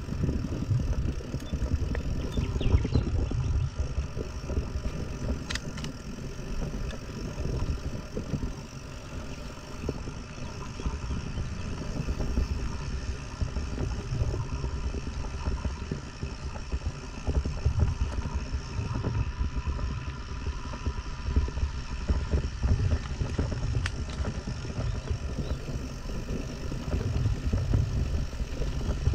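Mountain bike riding over a dirt trail: a continuous rumble of tyres and wind buffeting on the microphone, rising and falling, with light rattle and a couple of sharp clicks.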